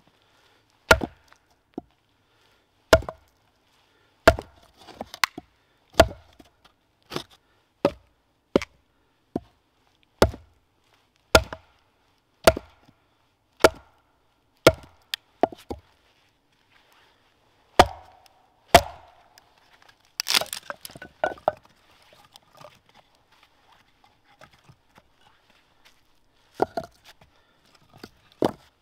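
Hatchet being batoned through a log: a round length of wood strikes the back of the hatchet blade with sharp, dull wooden knocks, about one every second or so, splitting firewood. A quick run of smaller knocks and clatter comes about twenty seconds in, and a couple more strikes come near the end.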